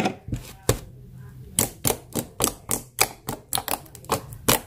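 Homemade glue slime being squeezed and poked by hand, giving off an irregular run of sharp clicks and pops, about three a second.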